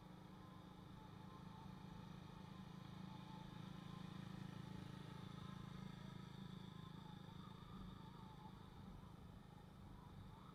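Faint, steady low hum of a motorbike being ridden along a road: engine and road noise.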